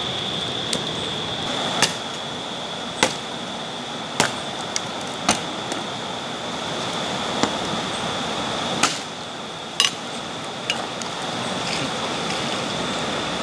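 River water rushing steadily, with about ten sharp knocks at irregular intervals over it and a steady high-pitched tone.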